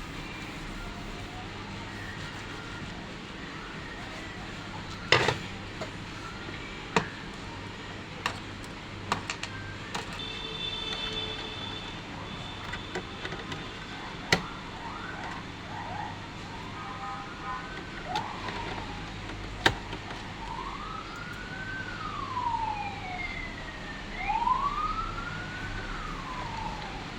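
A few sharp clicks and knocks, then in the second half a siren wailing, its pitch rising and falling slowly, over a low steady hum.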